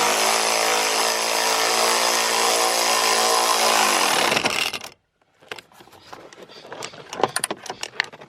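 Handheld power driver spinning in the seat belt's bottom anchor bolt for about four and a half seconds, its pitch dropping as it stops. Light clicks and knocks of parts being handled follow.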